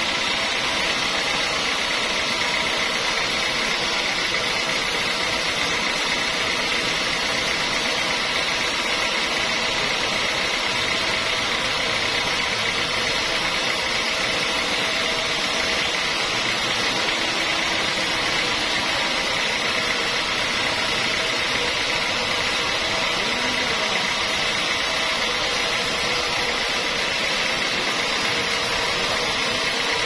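Band sawmill running and sawing a long mahogany log: a steady, unbroken noisy sound with a constant high tone through it.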